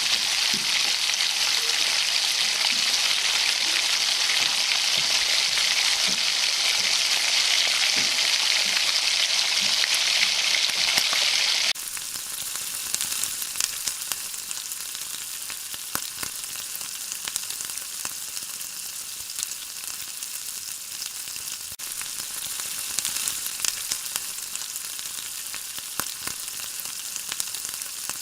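Prawns sizzling as they fry in hot oil in a pan. The loud, steady sizzle drops suddenly to a quieter sizzle with scattered crackles and pops about twelve seconds in.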